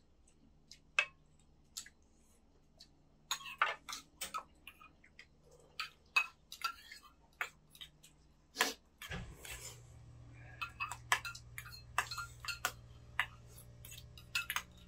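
Chopsticks and metal spoons clinking against bowls and pots as people eat around a portable gas burner: scattered sharp clicks and clinks. A low steady hum starts about nine seconds in.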